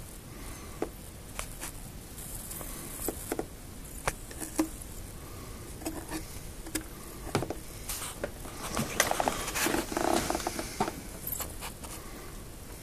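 Handling noise: scattered sharp clicks and light taps, with a denser run of crackling and rustling about nine to eleven seconds in.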